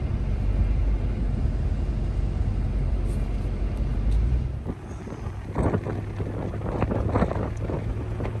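Pickup truck driving slowly on a rough dirt road, heard from inside the cab: a low rumble of engine and tyres that drops off about halfway as the truck slows down, followed by scattered crackles.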